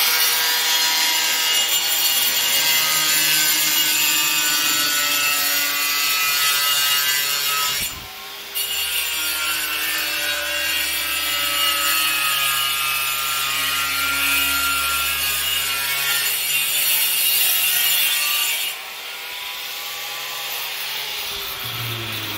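Handheld angle grinder with a cutting disc running and cutting through ply sheet, a loud steady whine and rasp. It breaks off for a moment about eight seconds in, and from about nineteen seconds in it runs on more quietly.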